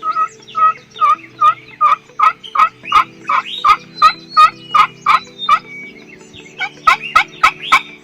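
Turkey yelping: a fast run of short, loud yelps, about two to three a second, that grow louder. They pause briefly about six seconds in, then pick up again in a quicker burst. A steady low hum runs underneath.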